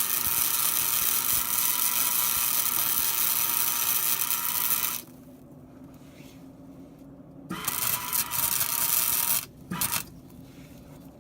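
Welding arc from a Hobart welder sizzling steadily as a bead is laid on steel chain hooks. It stops about five seconds in, runs again for about two seconds, and then comes in a few short bursts near the end.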